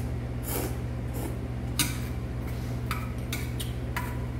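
Metal chopsticks clicking and scraping against a stainless steel bowl of noodle soup, several light clinks scattered through, with a slurp of noodles about half a second in. A steady low hum runs underneath.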